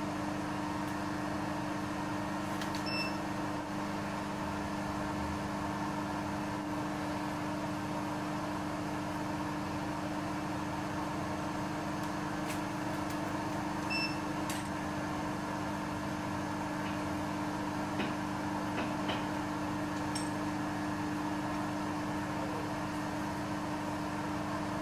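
Milling machine running with a steady mechanical hum, with a few faint light ticks.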